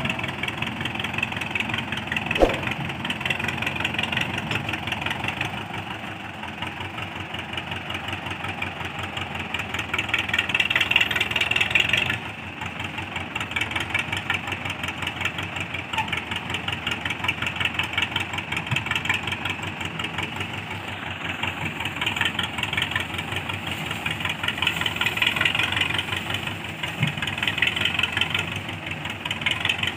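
Diesel farm tractor engine running with a steady, rapid clatter as it pulls a trolley loaded with sugarcane.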